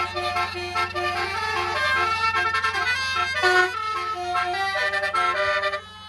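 A basuri musical air horn playing a quick tune of held notes over a steady low engine hum, breaking off sharply near the end.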